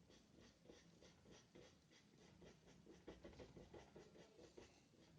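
Faint, quick scratching of a paintbrush working gouache paint on paper in short repeated strokes, several a second.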